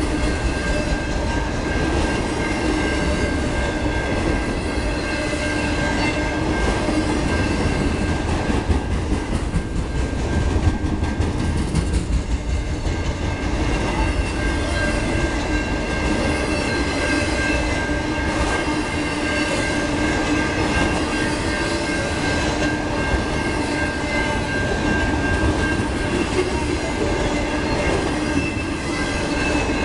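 Freight train of autorack cars rolling past: a steady rumble of steel wheels on rail, with steady high ringing tones held over it.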